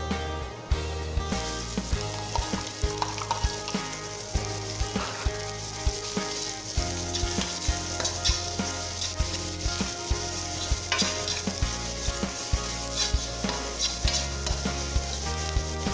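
Chopped garlic and onions sizzling in oil in an aluminium wok, with a metal ladle scraping and tapping the pan as they are stirred. The sizzle grows louder about a second in.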